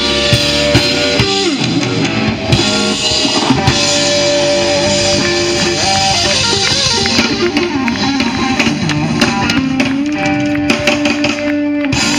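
Live blues band playing through an outdoor stage PA: electric guitar with held notes that bend in pitch, over a drum kit.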